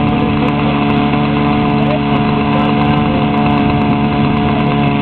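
Engine of a large radio-controlled Dornier Do 335 scale model idling steadily on the ground, with an even pitch that neither rises nor falls.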